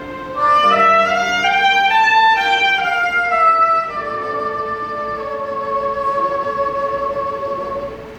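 Soprano saxophone playing a melody over accompaniment. The phrase climbs and falls, then settles into a long held closing note that ends near the end.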